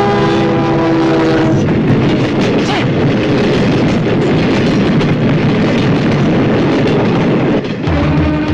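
A train horn held on one steady note, which stops about a second and a half in, followed by the loud, steady rushing noise of a train passing.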